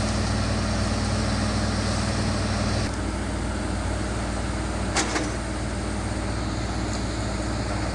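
Heavy construction machinery engine running steadily, its sound shifting slightly about three seconds in, with one sharp click or knock about five seconds in.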